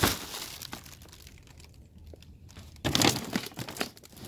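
Crinkling and rustling of a bag of cat food being handled: a sharp rustle at the start, then quieter crackling, and another bout of crinkling about three seconds in.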